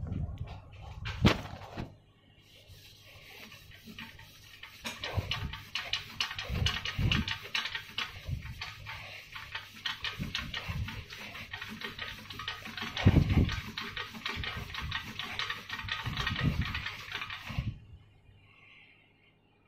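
Hand rubbing down the bare metal frame tube of a fat bike: a fast, continuous scrubbing that stops near the end, with dull handling thumps along the way and a couple of sharp knocks in the first two seconds.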